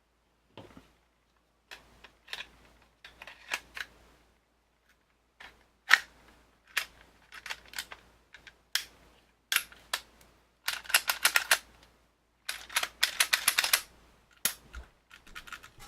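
Smith & Wesson Shield 9mm pistol being reassembled by hand: a series of sharp metallic clicks and snaps as the parts go back together, with two quick runs of rapid clicking in the second half.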